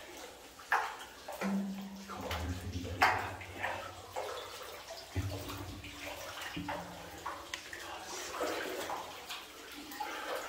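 Water sloshing and splashing in irregular surges as a person wades through chest-deep water in a flooded rock mine tunnel.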